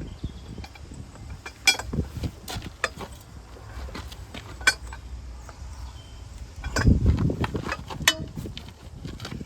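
Irregular metallic clinks and knocks, with a brief low rumble of handling noise about seven seconds in.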